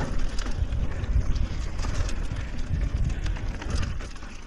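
Wind buffeting the microphone of a bike-mounted action camera as a mountain bike runs down a dirt trail, with tyre noise and short clicks and rattles over bumps. It eases off near the end as the bike slows.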